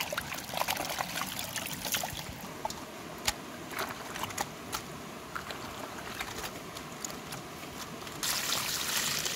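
Hands splashing and rubbing cabbage pieces in a basin of water, then a quieter stretch of scattered light knocks and taps. Near the end comes a steady stream of water pouring from above into a plastic basin of raw chicken feet.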